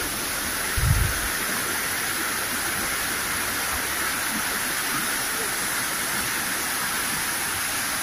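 Shallow rocky stream rushing over stones in small rapids: a steady, even rush of water. A brief low bump about a second in.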